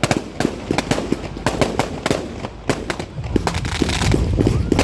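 Fireworks going off in rapid, irregular cracks and bangs, several a second, with a brief hissing crackle near the end.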